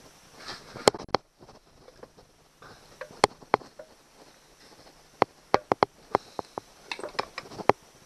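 Sharp, irregular clicks and knocks of the aluminium midsection and lower-unit castings of a 1999 Honda 8 hp four-stroke outboard tapping together as they are worked by hand into alignment. There are a dozen or so, bunched toward the end.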